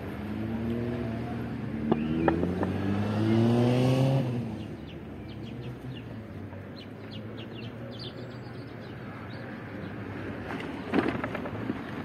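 A motor vehicle's engine pulling away, its pitch rising steadily for about four seconds before it fades. After that, a small bird chirps in a quick series of short notes.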